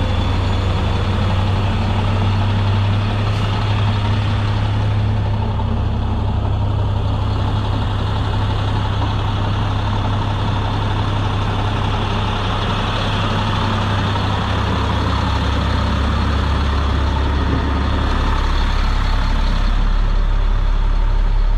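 Sterling L7500 vacuum truck's engine idling steadily, a deep even drone that gets a little louder near the end.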